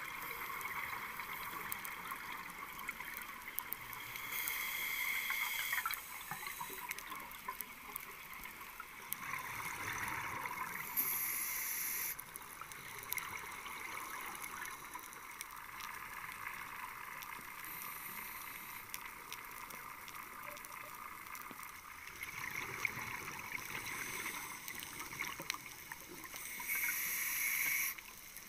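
Scuba exhaust bubbles heard underwater, coming in rushing bursts of one to a few seconds with each breath, over a steady crackle of fine clicks.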